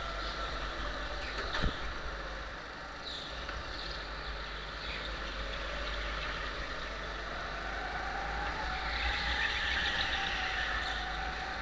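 Rental go-kart engine running at racing speed, its pitch rising and falling as the kart goes through the corners, with a few brief high tyre squeals and a single sharp knock about a second and a half in.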